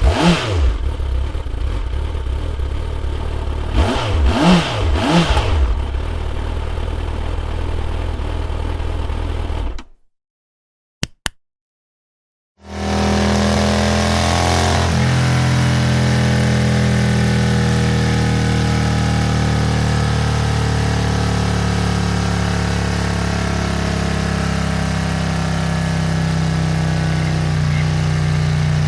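Motorcycle engine sound effects. One engine runs with a few quick throttle blips about four to five seconds in and stops about ten seconds in. After a short pause with two faint clicks, another motorcycle engine idles steadily.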